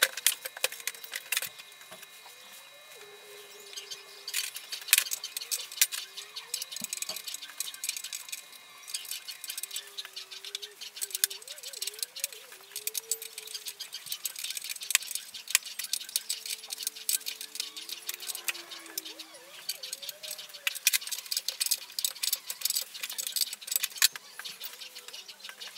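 Metal parts and tools clinking and tapping in irregular bursts as a scooter's rear wheel and chain are handled and fitted by hand.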